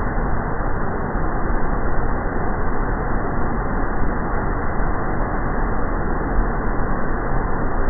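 Fast, muddy river water pouring over a ledge into churning white water: a loud, steady rushing roar.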